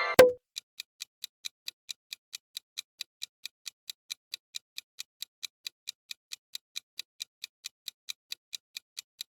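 Clock-ticking countdown sound effect: quick, even ticks, about four or five a second, with one sharper click just after the start.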